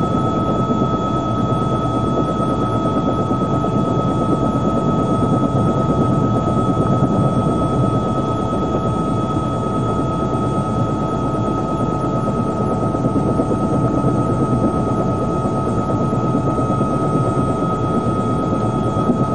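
Helicopter running steadily, heard from aboard: a dense, even rumble with a constant high whine over it.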